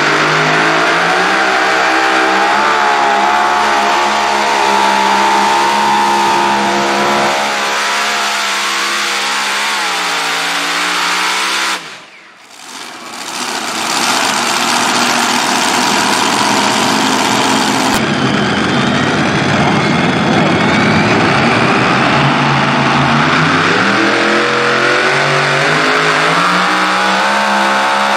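Super modified pulling tractors' multiple supercharged engines running at full throttle under the load of the pulling sled, their pitch rising and falling as the revs change. About twelve seconds in the sound drops away abruptly and comes back loud; near the end the engines climb steeply in pitch.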